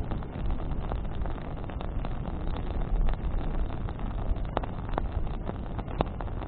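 Bonfire burning: the wood crackles in scattered sharp snaps, with a few louder pops in the second half, over a steady low rumble.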